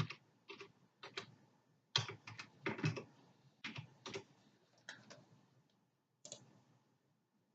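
Typing on a computer keyboard: a run of unevenly spaced key clicks that stops about six and a half seconds in.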